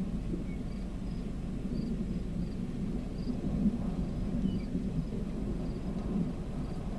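Outdoor ambience under a tornadic thunderstorm: a steady low rumble, with faint insect chirps repeating high above it.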